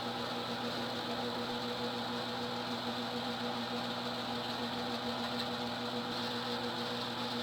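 Homemade lathe's electric motor running at a steady speed, a constant hum with several steady tones.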